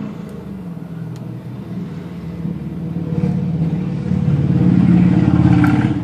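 A low motor hum that grows louder from about halfway through and falls away at the end.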